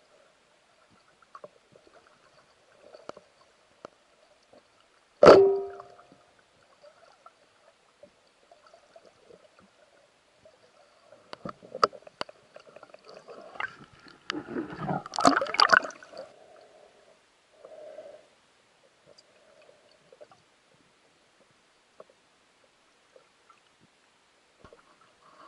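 Underwater gurgling and small bubbling noises, heard through the water around a swimming spearfisher's camera. About five seconds in comes one sharp knock with a brief ringing tone, and from about twelve to sixteen seconds a longer stretch of louder, busier gurgling.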